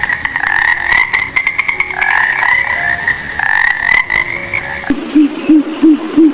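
Animal calls: a high, wavering, drawn-out call with many sharp clicks through it. About five seconds in, it gives way to a lower call repeating about three times a second.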